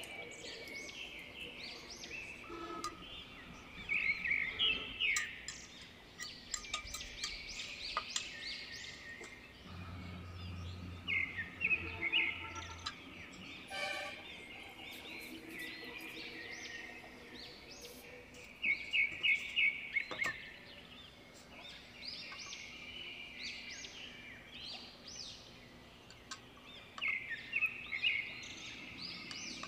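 Small birds chirping again and again in quick runs of high notes, with a brief low hum around the middle.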